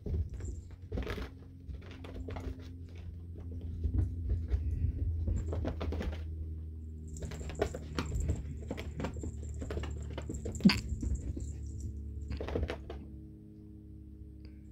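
Background music with sustained, slowly changing notes, over scattered light thumps and patters of cats' paws scrambling after a laser dot, with one sharper knock about ten seconds in.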